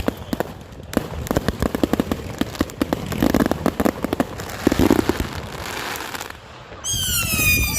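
Fireworks crackling in a dense run of rapid pops that thins out about six seconds in; near the end a single long whistle glides downward.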